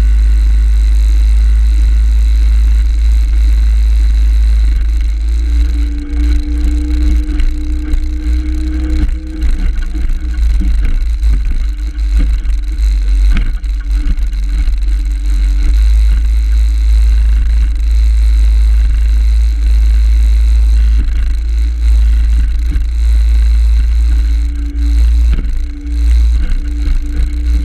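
35 hp Evinrude outboard motor running at speed, its tone wavering up and down, under a heavy low rumble of wind on the microphone. Now and then there are sharp knocks as the hull meets the chop.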